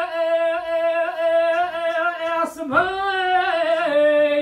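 A man singing unaccompanied in the Kurdish dengbêj style, holding one long, steady note. A short break comes about two and a half seconds in, then a new phrase starts higher and steps down in pitch.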